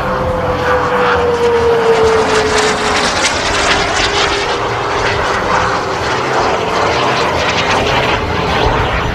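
Small gas turbine engine of a Paritech Natrix RC model jet running in flight: a steady rushing jet noise with a tone that falls slightly in pitch over the first few seconds, then holds steady.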